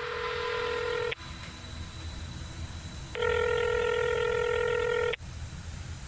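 Phone ringing in long even rings: one ring stops about a second in, and the next sounds for about two seconds starting about three seconds in.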